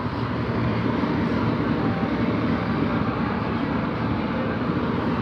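Loud, steady background drone: an even, low whooshing hum with no separate events in it.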